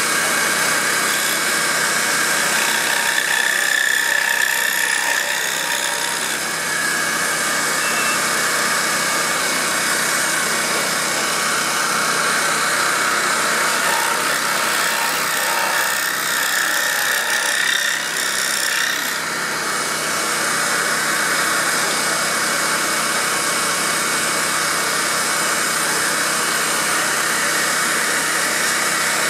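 Pégas scroll saw running steadily, its fine blade sawing through a small wooden piece as it is turned and fed by hand.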